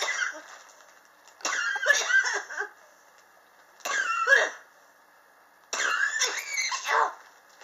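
A person coughing in three separate fits, each a short run of coughs, spaced about two seconds apart. It is a chronic cough that has persisted for years.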